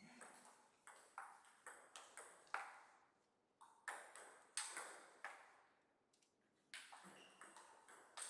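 Celluloid-type table tennis ball struck by rubber paddles and bouncing on the table in a rally: a run of sharp clicks about a third of a second apart, with a pause of about a second past the middle.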